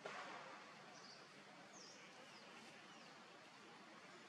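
Near silence: faint outdoor ambience with a short soft rustle at the very start and a few faint, short high chirps scattered through.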